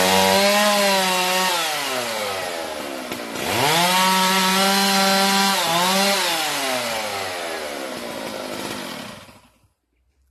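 Chainsaw revved to full throttle twice, each burst about two seconds long, with the pitch dropping back between them. After the second burst the engine winds down and goes quiet near the end.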